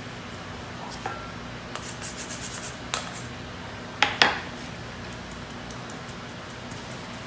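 Fine-mesh metal sieve being shaken and tapped over a glass mixing bowl to sift flour: a quick run of light rattles about two seconds in, then two sharp clinks a little after four seconds.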